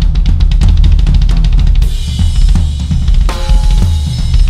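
Acoustic drum kit played fast: rapid kick-drum and snare strokes, then Paiste cymbals washing from about two seconds in, with accented hits that ring briefly near the end.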